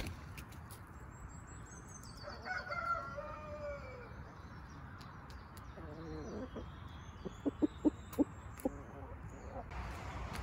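Brahma chickens: a rooster crows once, a falling call of about a second and a half, starting about two and a half seconds in. Later a hen gives a short call, then clucks several times in short low notes.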